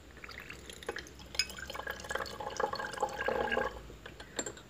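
Water-based solution poured through a glass funnel into a narrow-necked glass flask, splashing and trickling for a few seconds and stopping near the end, with a couple of light clinks of glass.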